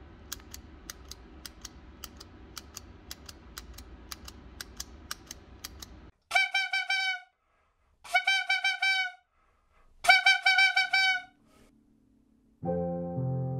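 Regular sharp clicks, about three a second, over a low hum; then three separate honking, horn-like notes of about a second each; then piano music begins near the end.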